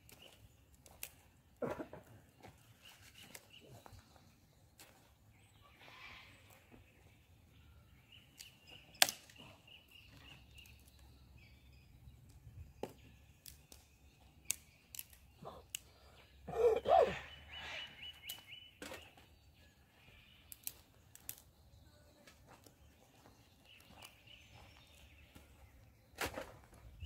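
Quiet bush ambience: a bird repeats a rapid high trill several times, over scattered clicks and knocks from camp gear being handled. A brief louder noise about two-thirds of the way through is the loudest event.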